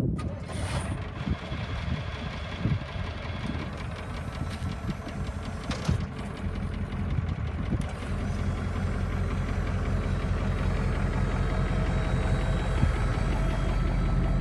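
Caterpillar 3208 V8 diesel in a Ford LN 8000 truck idling steadily, getting louder over the second half. A thin steady whine joins it near the end.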